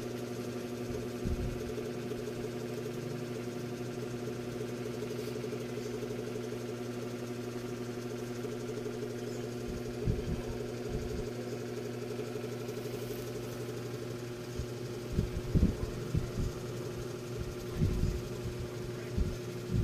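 A steady machine hum, like a small motor running, with a few soft low thumps in the second half.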